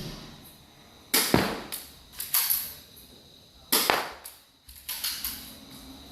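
Spring-action airsoft pistol shooting: three sharp cracks, about a second apart, with fainter clicks between them.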